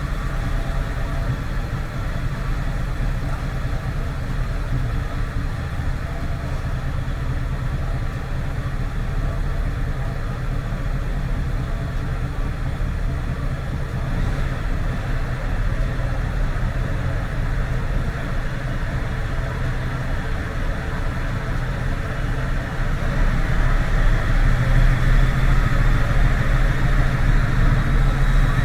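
Mercedes Actros truck's diesel engine running steadily, getting louder about three-quarters of the way through.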